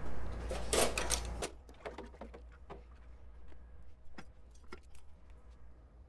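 Brewing gear being handled: a second and a half of clattering over a low hum that cuts off abruptly, then faint scattered clicks and taps.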